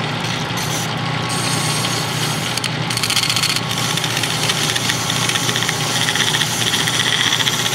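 Metal lathe running with a steady hum while a hand file is held against the spinning metal workpiece to round its corner. The file's scraping on the turning metal grows louder from about three seconds in.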